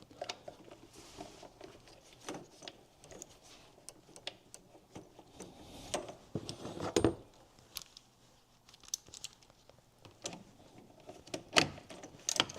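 Scattered clicks and light knocks of plastic and metal parts being handled as the purge valve solenoid and its fittings are put back in place, with a few louder knocks about six seconds in and near the end.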